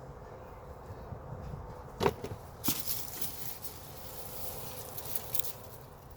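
Soil and sweet potato vines rustling and crackling as the tubers are dug and pulled by hand from a garden container, with two sharp clicks about two seconds in.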